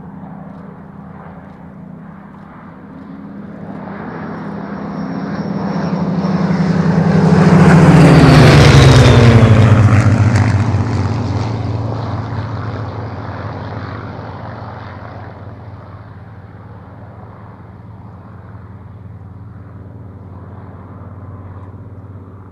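A Hawker Hurricane and two Supermarine Spitfires, all with Rolls-Royce Merlin V12 engines, making a formation flypast. The engine drone builds to a loud peak about eight seconds in, drops in pitch as the fighters go by, then fades to a steady lower drone.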